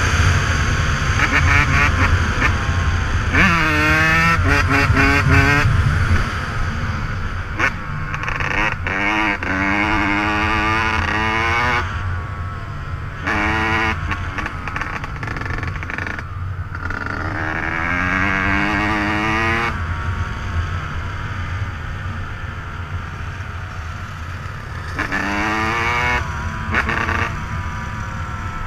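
Dirt bike engine revving up and easing off again and again, its pitch climbing in repeated sweeps as it pulls through the gears.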